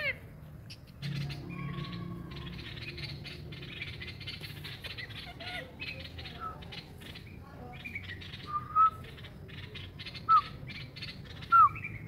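Rose-ringed parakeet giving short, sharp calls, three of them loud in the second half. A steady rustling with many small clicks runs under them.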